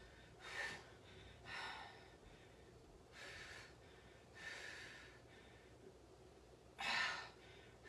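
A woman's breathing, heard as about six short, hushed breaths roughly a second apart while she works through slow lower-ab crunches; the loudest breath comes near the end.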